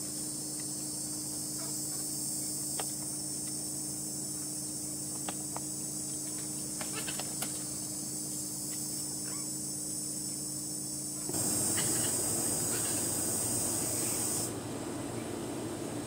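Steady high-pitched insect chorus over a low hum, with a few faint clicks near the middle. About eleven seconds in, a louder rushing noise comes in for a few seconds.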